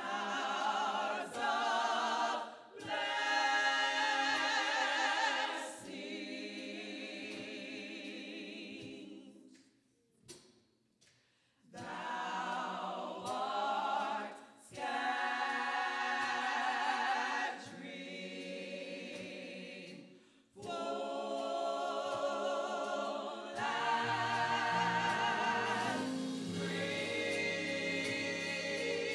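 Church choir singing in phrases, with short pauses between them.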